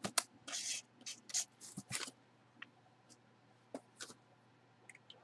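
Handling noises on a table: a quick run of short rustles and scrapes in the first two seconds, then a few scattered light clicks and taps, as a cardboard box and packaging are moved about and set down.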